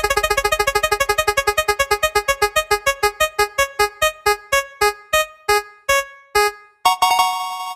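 Electronic keyboard-like sound effect of a spinning wheel: a pitched note repeats rapidly and then slows steadily, as a wheel coasting to a stop, ending with a short held tone near the end.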